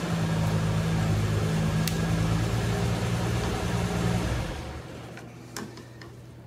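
A machine running with a steady low hum and hiss, dying away about four and a half seconds in.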